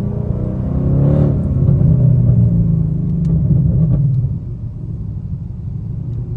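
Roush-supercharged Ford Coyote 5.0 V8 of a 2020 Mustang GT running under way, heard from inside the cabin as a low exhaust drone. A brief sharper burst comes about a second in, and the engine note falls off about four seconds in.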